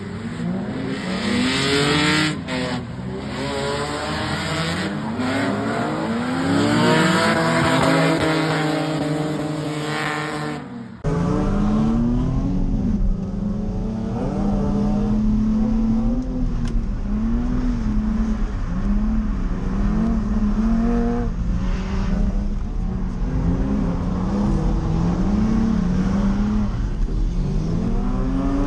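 Nissan 350Z drift car's V6 engine revving hard, its pitch climbing and dropping again and again, with tyre squeal. About eleven seconds in, the sound cuts to the engine held at high revs with quick repeated dips.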